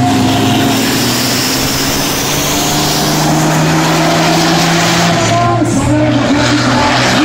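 Semi-truck diesel engines running flat out down a drag strip, a loud, steady drone of big-rig engines. The engine notes hold their pitch, then wobble and shift about five and a half seconds in.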